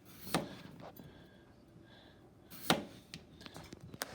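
Kitchen knife slicing russet potatoes into quarter-inch rounds, the blade cutting through and knocking down on the board: two sharp chops about two and a half seconds apart, with a few lighter taps between.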